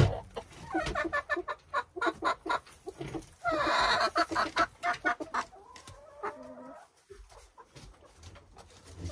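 Silkie chickens clucking: a quick run of short clucks with one louder call about four seconds in, then fainter, sparser clucks toward the end.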